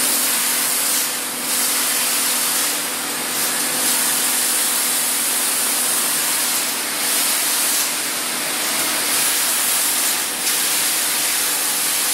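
Arc welding in a fenced welding cell: a steady, loud hiss over a faint low hum, dipping briefly a few times as the arc pauses.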